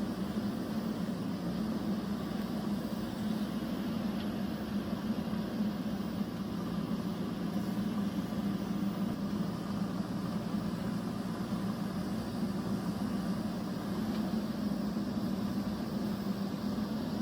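Steady, unchanging motor hum that holds one pitch throughout.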